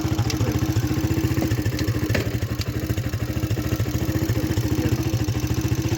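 A small ATV engine running steadily with a rapid, even putter, with a few light clicks and rattles in the first few seconds.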